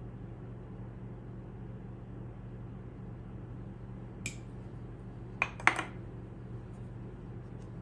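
A few light clinks of kitchen utensils against dishes: one about four seconds in, then two close together a second later. A steady low hum runs underneath.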